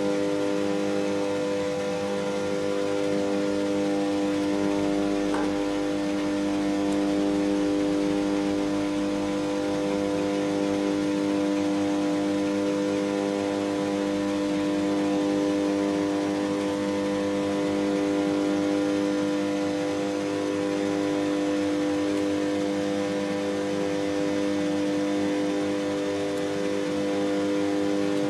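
Stand-up tanning booths running: a steady electrical hum with the whir of cooling fans, unchanging throughout.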